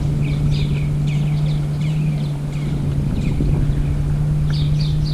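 A motor runs at a steady low hum throughout, with small birds chirping over it in quick, repeated falling notes.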